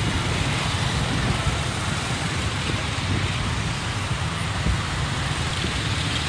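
Slow, dense motorcycle and car traffic: a steady mix of small engines running and road noise, heaviest in a low rumble.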